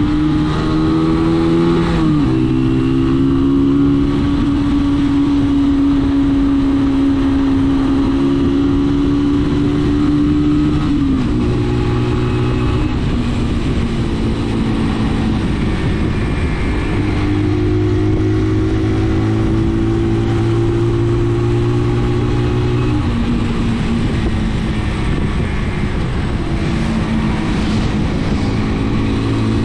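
Brixton BX5 motorcycle engine running steadily under way, over a constant rush of wind and road noise. Its pitch rises a little and then drops sharply about two seconds in, and falls again around eleven and twenty-three seconds.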